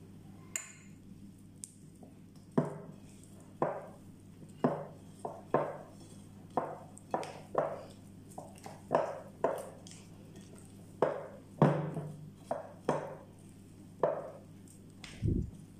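Soft, sticky sfenj yeast dough being worked by hand in a glass bowl: repeated wet squelching slaps, about one or two a second, starting a couple of seconds in. The dough is still very sticky. A dull low thump comes near the end.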